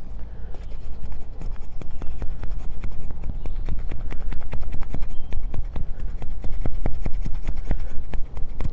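A convex-grind bushcraft knife is shaving curls off a stick of hard seasoned wood: a rapid run of scraping strokes crowded with small clicks, the edge digging in deep with every push. A steady low rumble lies underneath.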